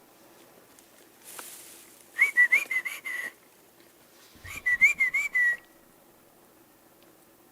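A loud whistled call in two short warbling phrases, each about a second long and made of several quick rising-and-falling notes, the second starting about two seconds after the first.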